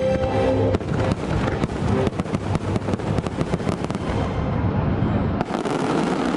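A fireworks barrage, many quick bangs and crackles in rapid succession, taking over as the show's music ends about a second in.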